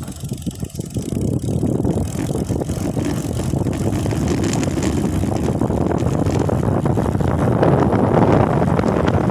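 Running noise of a moving vehicle, engine rumble mixed with rushing air, building steadily louder.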